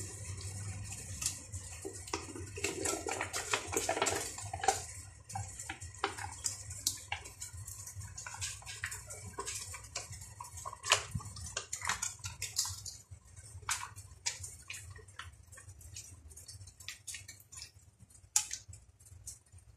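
Thick spaghetti sauce poured and squeezed from a pouch into an aluminium pot of meat, with wet squelching and many small clicks and taps of a wooden spatula against the pot. It is busiest in the first five seconds, then thins to scattered taps.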